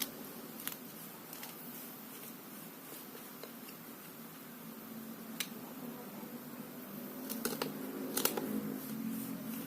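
Knife cutting through a cheese-topped sponge cake, with a few sharp clicks where the blade meets the plate or tray, more of them near the end.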